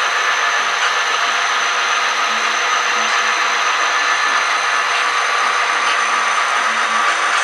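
HO-scale model diesel locomotives running past, a steady whirring of their small electric motors and metal wheels on the rails.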